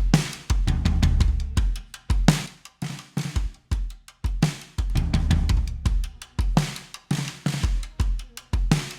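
Recorded acoustic drum kit playing a steady groove of kick drum, snare and cymbals, a drum track played through a vari-mu tube compressor to show its effect.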